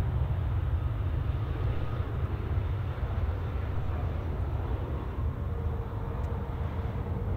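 Airbus A321 airliner's jet engines rumbling steadily as it rolls out along the runway after touchdown, with a faint steady whine joining about three-quarters of the way through.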